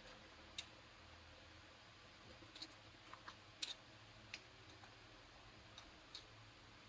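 Faint, scattered clicks and light taps of a glass jar and utensil as thick mole paste is worked out of the jar into a blender jar, about a dozen irregular clicks over a near-silent room.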